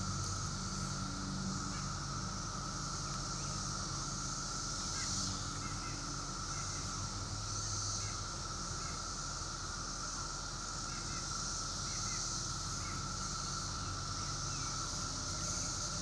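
Chorus of 17-year periodical cicadas: a steady drone held at one pitch, with a higher, hissing layer that swells and fades every few seconds. Birds chirp briefly over it.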